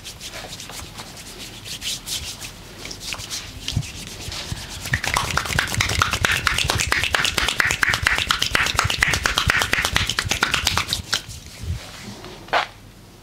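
Hands rubbing briskly over skin in a massage. Light, scattered strokes give way about five seconds in to fast, rhythmic rubbing that lasts about six seconds. A single sharp click comes near the end.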